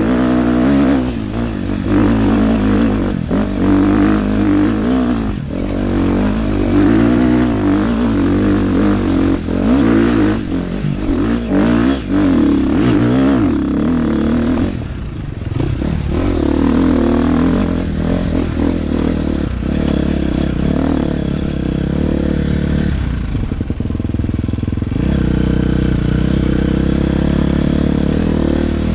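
Dirt bike engine riding a rough trail, revving up and down over and over, with knocks and rattles. It settles to a steadier, even running note near the end.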